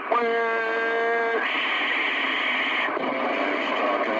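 Stryker CB radio receiving a weak skip signal through its speaker: static hiss, broken by a steady buzzing tone for about a second near the start, with faint garbled voices coming up under the noise near the end.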